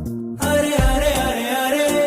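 Background music with a sung melody over a steady bass beat.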